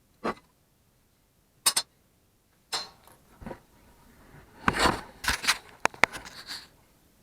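Hard objects being handled on a workbench: a few scattered clicks and knocks, then a quick run of sharp clinks and clatter about two thirds of the way through.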